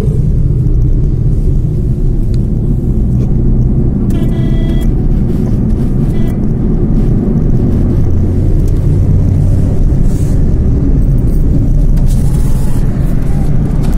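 Road and engine noise inside a moving car's cabin: a loud, steady low rumble. A brief high-pitched tone sounds about four seconds in.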